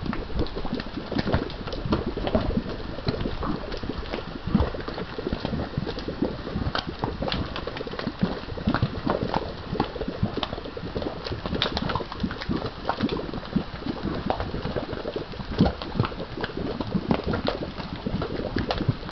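Volcanic mud pot bubbling: a steady, irregular run of plops and pops as gas bubbles burst through the mud.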